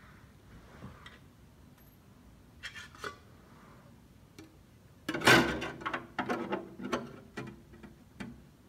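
Sharp metallic clicks and clatter from hand work under the car: a couple of clicks about three seconds in, then a loud clatter a little after five seconds, followed by a run of uneven ticks and clicks.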